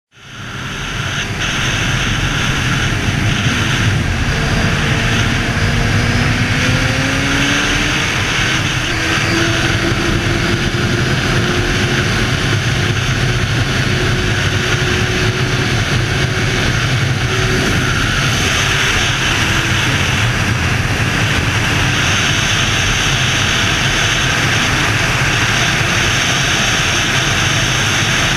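Wind rushing loudly over an onboard camera on a Suzuki sport motorcycle at road speed, with the bike's engine running underneath. A few seconds in, a faint engine note rises in pitch and then holds steady.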